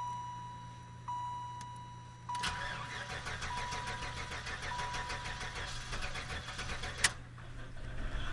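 Buick Roadmaster's LT1 V8 cranking on the starter for about five seconds without firing, then stopping with a sharp click; a warning chime dings at a steady pace before the cranking begins. It is a crank-no-start, which the owner traced to a failing aftermarket ignition coil.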